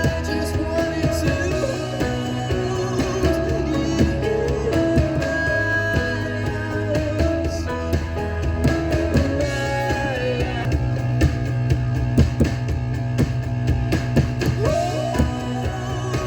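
Rock music playing: guitar, drums and a singing voice.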